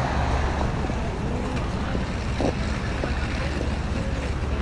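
Street ambience: a steady low traffic rumble with faint chatter of passers-by.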